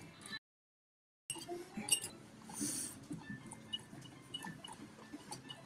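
Metal spoon clinking faintly against a white ceramic bowl while stirring thin melted-chocolate ganache. The sound cuts out completely for about a second near the start.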